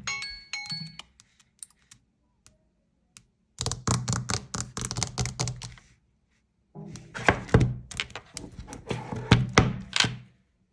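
Handling noise: a rapid string of taps and thunks in two bursts of a couple of seconds each, the first starting a few seconds in, after a marimba-like ringtone ends in the first second.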